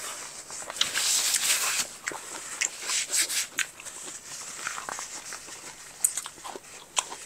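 Eating and table-handling noises: scattered small clicks and knocks, with a brief rustling hiss about a second in.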